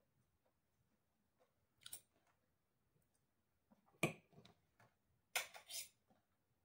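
Metal fork clicking and scraping against a salad platter and plate while raw vegetable sticks are picked up, a few short sounds in near quiet. The sharpest click comes about four seconds in, and a short rasp follows about a second and a half later.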